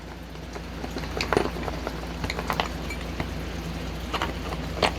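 Scattered light clicks and knocks of small tools and parts being handled and put back into a storage case, over a steady low hum.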